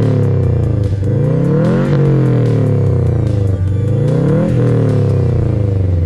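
Subaru Impreza WRX's turbocharged flat-four revved while stationary through an Invidia N1 cat-back exhaust, the engine note climbing and dropping back three times. Background music plays over it.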